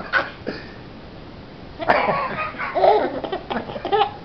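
A young child with hiccups laughing and babbling in short voiced bursts, with a sudden sharp catch of breath about two seconds in.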